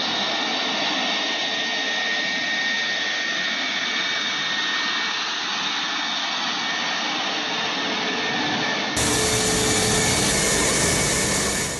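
Su-57 fighter's twin jet engines running at low power, a steady whine with high fixed tones. About nine seconds in it changes abruptly to a louder, fuller sound with more rumble underneath.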